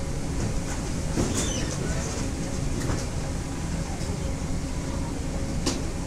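Airport baggage carousel running: a steady low rumble with scattered clacks and knocks, the sharpest a little before the end.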